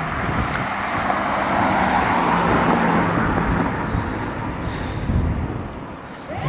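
A car on the move: road and wind noise with a low steady engine hum underneath, swelling about two seconds in and easing off near the end. Right at the end an engine starts to rev up.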